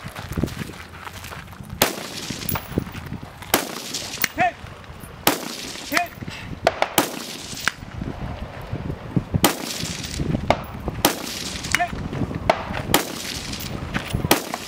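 A string of rifle shots fired at an irregular pace of about one a second, each a sharp crack that echoes briefly.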